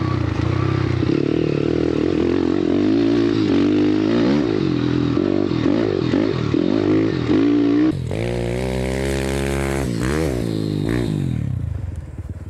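YCF Bigy pit bike's four-stroke single-cylinder engine, ridden hard through dirt-track corners: the revs rise and fall repeatedly as the throttle is worked, heard from on the bike. About eight seconds in it is heard from trackside instead, holding steady high revs, then dropping and fading near the end.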